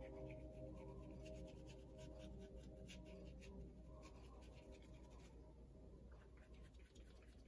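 Paintbrush scrubbing acrylic paint onto thick, heavily layered watercolour paper: faint, quick scratchy strokes with short pauses between them. A few soft sustained musical tones fade away in the first seconds.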